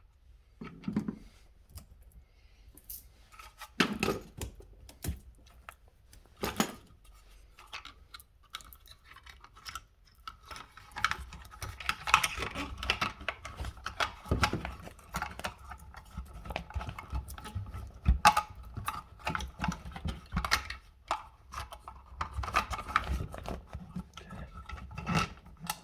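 Scattered clicks, taps and rattles of hands working an electrical box and its wiring into a wall opening, setting the box's mounting tabs. The clicks come thicker from about halfway, with a faint steady whine under them.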